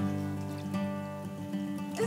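Background music played on acoustic guitar, a chord struck at the start and then notes ringing on.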